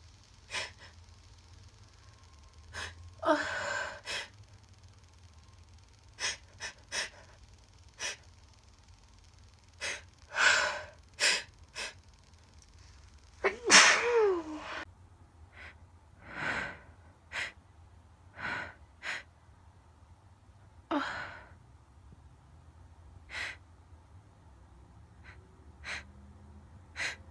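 A woman sneezing again and again, with sharp gasping breaths between the sneezes. The loudest sneeze comes about 14 seconds in.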